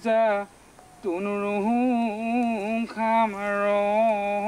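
A solo voice singing a slow, chant-like melody in long held notes that waver and bend, breaking off briefly about half a second in and again near three seconds.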